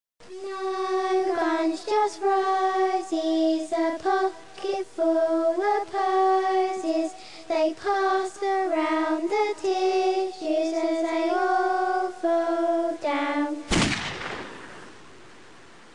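A single high voice sings a slow tune unaccompanied, note by note. About 13.5 seconds in, one loud gunshot cuts it off and dies away over a couple of seconds.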